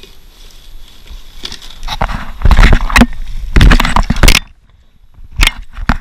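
Loud crackling and rustling of the camera microphone being handled and rubbed, in bursts from about two seconds in. It cuts off abruptly for about a second, then a sharp click comes near the end.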